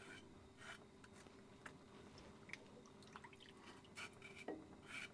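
Near silence with a faint steady hum, broken by a few soft drips and light ticks as a knife scrapes leftover skin off a peeled, boiled plantain and water drips back into a pot of turmeric water.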